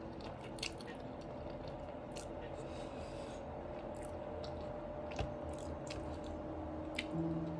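Close-miked chewing of a mouthful of creamy fettuccine alfredo, with soft, scattered wet mouth clicks over a faint steady hum.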